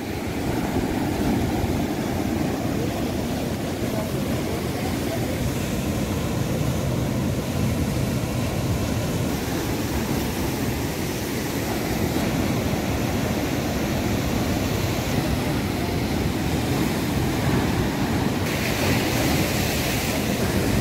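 Sea surf washing steadily against the shore, mixed with wind on the microphone, growing hissier near the end.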